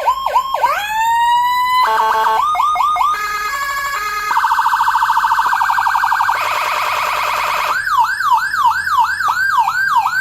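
Whelen HSS electronic siren module cycling through its tones. It opens with fast up-down sweeps and a long rising wail, moves to stepped alternating tones and then a rapid pulsing warble from about four seconds in, and goes back to quick sweeps about three a second near the end. It cuts off suddenly.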